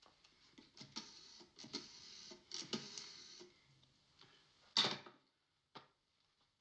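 Desk telephone receiver put down with clicking and rattling, then a sharp knock just under five seconds in and a fainter click about a second later.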